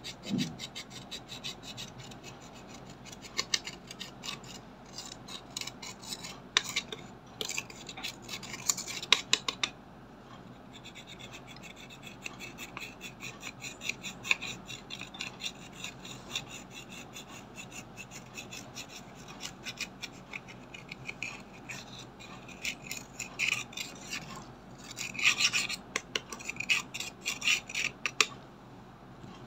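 Dotting tool's metal tip scraping pressed makeup powder out of a plastic palette pan: a dry, gritty scratching in rapid short strokes, louder in spells about a third of the way in and again near the end.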